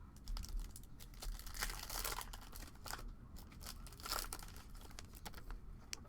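Trading cards and foil pack wrappers being handled, crinkling and rustling in short irregular bursts.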